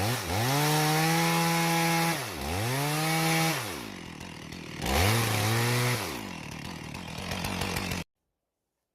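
Stihl chainsaw running near full throttle while cutting wood. Its engine speed drops steeply and recovers about three times, then falls away. The sound cuts off abruptly about eight seconds in.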